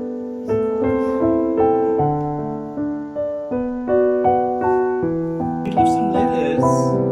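Background music: a piano playing a slow, gentle melody of separate notes that ring and fade.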